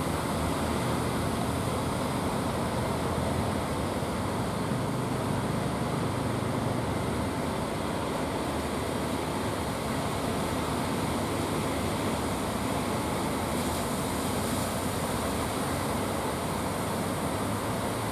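Steady rush of breaking surf, with the low hum of fishing boats' engines under it, clearest in the first half.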